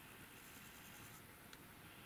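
Near silence: faint outdoor background hiss, with one faint tick about one and a half seconds in.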